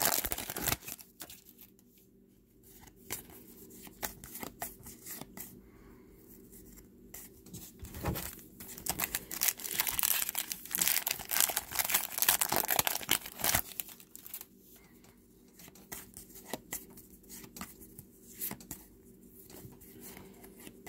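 Foil wrapper of a Topps trading card pack crinkling and tearing as it is opened by hand, in irregular bursts of rustling that are busiest around the middle.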